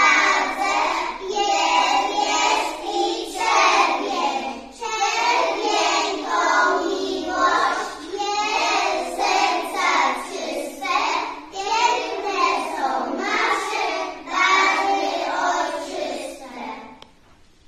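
A group of young children singing a song together in chorus, stopping about a second before the end.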